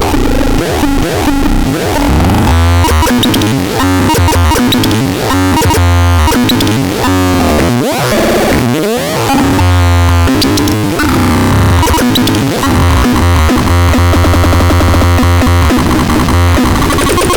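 DAZAX synthesizer playing dense electronic tones over a heavy bass layer, with pitch glides sweeping up and down and a rapid pulsing texture.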